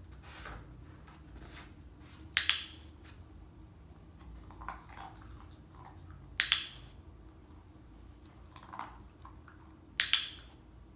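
Dog-training clicker pressed three times at roughly four-second intervals, each a sharp double click, marking the moment the dog offers the wanted behaviour during shaping. Faint softer rustles come between the clicks.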